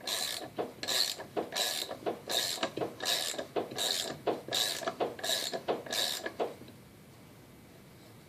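Ratchet wrench turning the forcing screw of a hub puller, a steady rhythm of clicking strokes about three every two seconds, drawing the brake hub off the axle. The ratcheting stops about six and a half seconds in.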